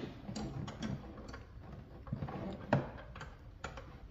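Irregular metallic clicks and small knocks of a hand tool working at a car battery's terminal bolt, about two to three a second, with one louder knock partway through.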